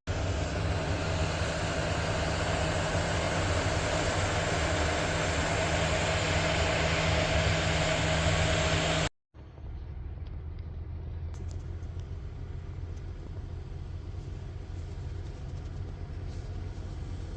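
Heavy diesel harvest machinery running steadily, with a low engine drone. About nine seconds in, the sound breaks off briefly and a quieter steady engine hum follows.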